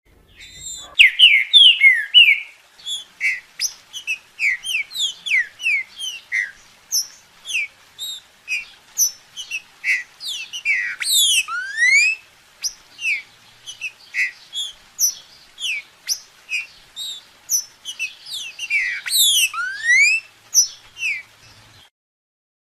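Green-winged saltator (trinca-ferro) singing: a long unbroken string of short, clear whistled notes, several per second. Twice, about halfway through and again near the end, it breaks into a cluster of fast sweeping glides.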